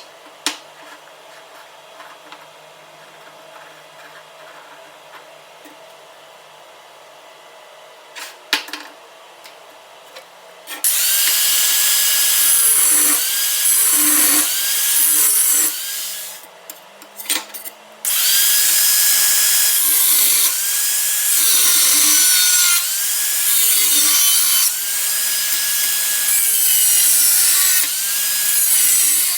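A handheld power tool grinding or cutting scrap steel in long passes, its motor pitch sagging under load and recovering between passes. Before it starts there are about ten seconds of quiet, with a few sharp clicks from handling the work.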